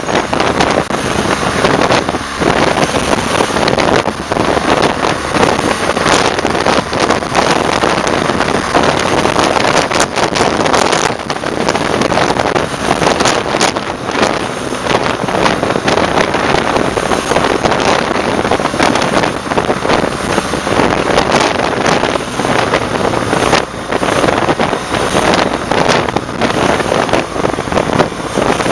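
Wind rushing and buffeting on the microphone of a camera mounted on a moving motorcycle, with many short gusts, over the noise of the motorcycle and the traffic it passes.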